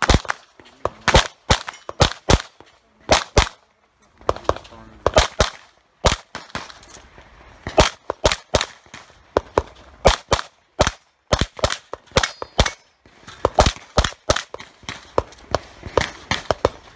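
Competition pistol fired rapidly through an IPSC stage: loud sharp shots, mostly in quick pairs a fraction of a second apart, with short pauses of up to about a second between groups as the shooter moves between positions.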